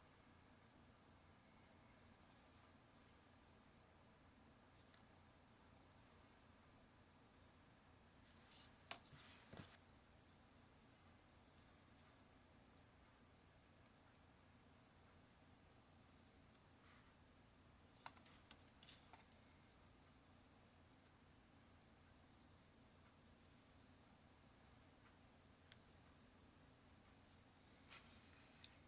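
Faint, steady, high-pitched insect trill of rapid, even pulses on one unchanging pitch, with a few faint clicks.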